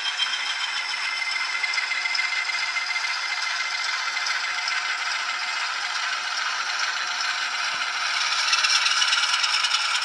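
ESU LokSound 5 Micro decoder playing its ALCO 6-539T diesel prime mover sound through a tiny 8x12 mm sugar cube speaker in an N scale RS-1 model, thin and without bass, with the rattle of the running model. The engine sound grows louder with a quick regular beat near the end.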